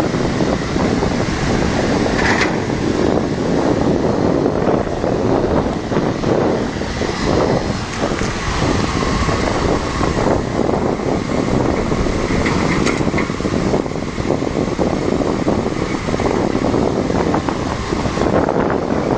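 Steady loud rush of a fast-flowing flooded river.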